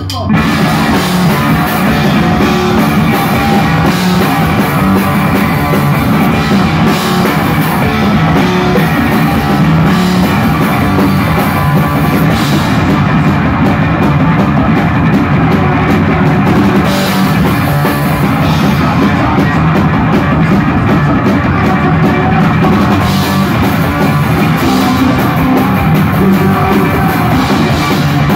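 Live rock played loud by a two-piece band of electric bass guitar and drum kit. The song kicks in right at the start and runs at full volume.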